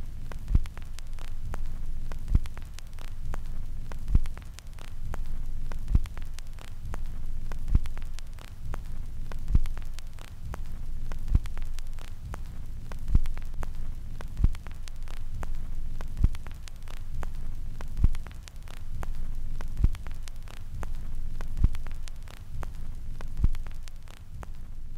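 Steady low hum with crackling static, and a low thump repeating evenly about every two seconds.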